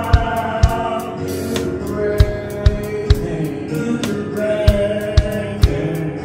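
Live gospel song: a male lead voice sings over electric keyboard chords. Sharp percussive beats come in groups of about three, half a second apart.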